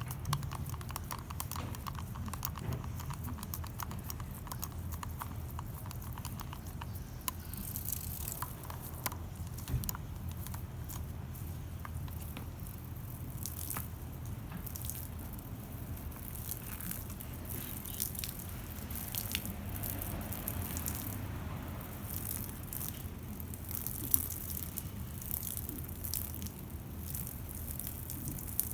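Shower water running and splashing, with many irregular small splashes and drips over a steady low hum.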